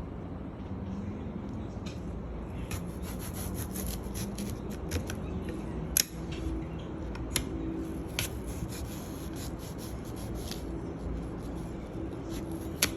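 Small knife cutting and scraping through a raw apple, the blade rubbing through the crisp flesh, with a few sharp clicks along the way.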